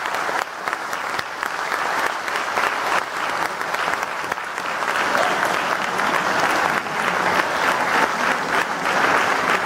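Audience applauding: many hands clapping steadily, growing a little louder in the second half.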